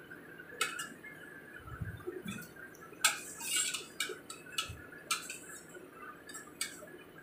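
Metal slotted spoon clinking and scraping against a small metal saucepan as boiled pork bones are stirred and scooped: irregular clanks, a few sharper than the rest.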